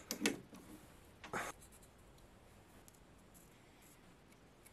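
Felt-tip marker rubbing on the steel of a lathe chuck's jaws and workpiece, faint. Two short strokes come in the first second and a half.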